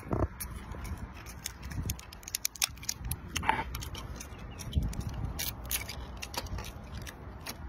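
Cooked brown crab's shell cracking and clicking in sharp, irregular snaps as it is broken and picked apart by hand.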